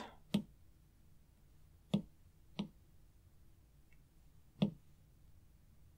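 Four sharp, separate taps on a tablet touchscreen, a second or so apart, with a fainter one between the last two.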